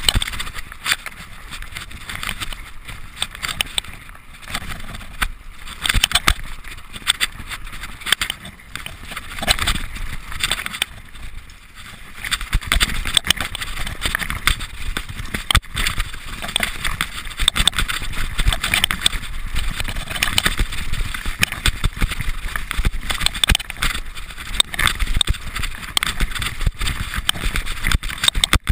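Mountain bike descending a rough dirt trail, heard from a camera mounted on the rider: constant clatter and rattle of the bike and tyres over the rocks and roots, with a rushing noise. Louder and rougher from a little before halfway through.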